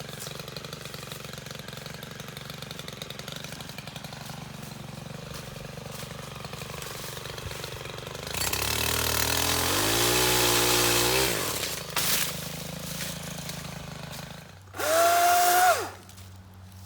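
STIHL KM 131R 4-MIX power head idling, revved up for about three seconds partway through, then dropping back to idle. Near the end, a loud high whine lasting about a second.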